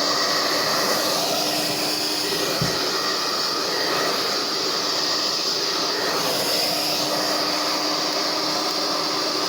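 Fórmula 6000 Turbo hair dryer running steadily, its fan now spinning freely and sounding smooth after a ball of packed hair was cleaned from under it. There is a soft knock about two and a half seconds in.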